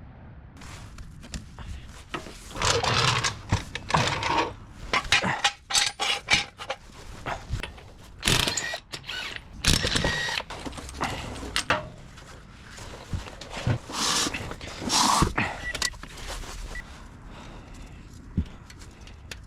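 Irregular clatter, knocks and scraping of hand tools and metal parts being handled during brake work, in uneven bunches. It is loudest in three spells and quieter near the end.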